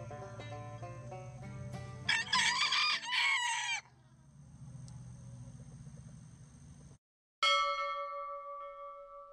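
A rooster crows once, loud and drawn out, about two seconds in, over light background music. Near the end a single bell-like chime is struck and rings on, fading.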